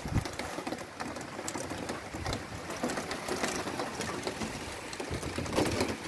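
Steady rain: an even hiss of rainfall with a rapid, irregular patter of drops striking a nearby surface.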